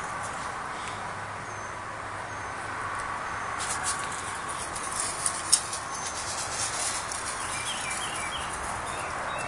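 Steady outdoor background hiss with scattered light clicks and a few faint short chirps.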